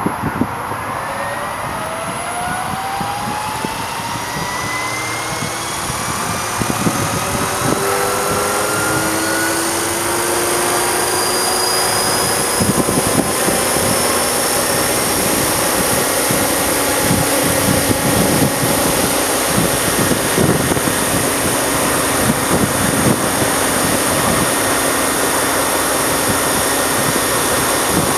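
Electric RC helicopter (Ikarus Eco 8) spooling up: a whine from the motor and rotor rises steadily in pitch over about the first ten seconds, then holds steady at flying speed. Gusty wind buffets the microphone.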